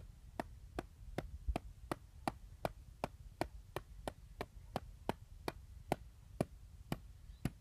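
A wooden utensil striking the cracked glass screen of an iPad mini over and over, sharp taps at an even pace of about three a second.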